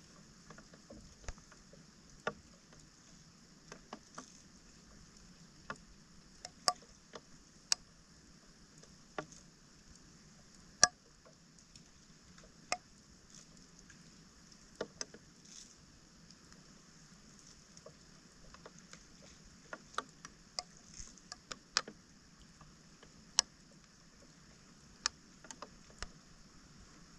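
Scattered, irregular sharp clicks and knocks from debris being pulled out of a roadside storm drain, over a faint steady hiss.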